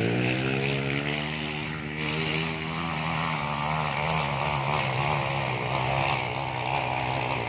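Trail motorcycle engine running hard at high revs, its note held fairly steady.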